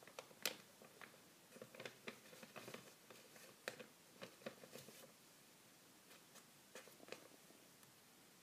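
A chocolate British shorthair cat pawing at loose sheets of paper, a pen and a phone: faint, irregular taps and paper rustles, mostly in the first five seconds, with a couple more near the end.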